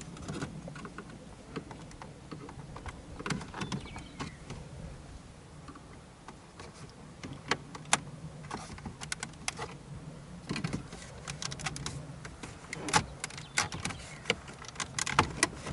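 Irregular clicks and creaks of the 2016 Ford Fusion's plastic dash trim around the factory stereo as it is pried and worked loose by hand. The clicks come thicker near the end, over a faint steady low hum.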